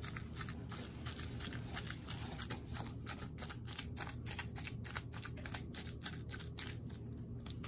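A whisk stirring a thick, chunky mixture of chopped eggplant, ground meat, egg and cornstarch in a bowl: a fast, irregular run of clicks and scrapes.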